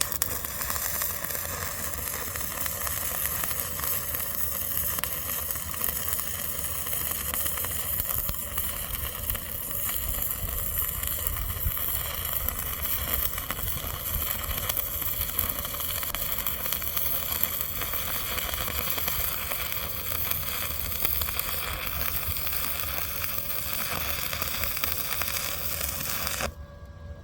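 Stick welding arc crackling and sizzling steadily as a bead is run, with a low hum beneath; the arc strikes at once and breaks off suddenly near the end.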